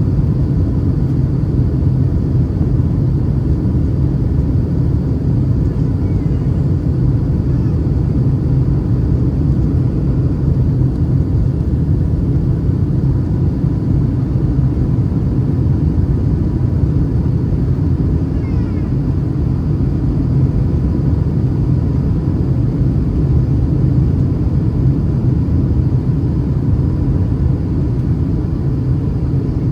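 Steady low rumble of a Boeing 737-800's engines and airflow, heard from inside the passenger cabin over the wing.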